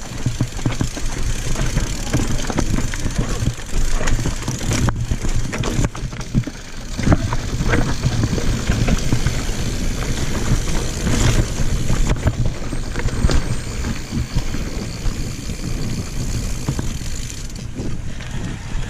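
Mountain bike riding down a dirt singletrack: tyres rolling over rough ground, with the bike clattering over bumps in a steady run of short knocks.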